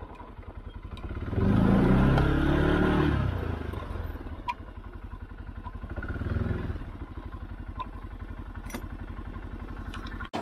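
Arctic Cat Alterra ATV engine running with a steady low pulse. It revs up and back down once about one and a half seconds in, and swells a little again around six seconds in. A few light clicks can be heard.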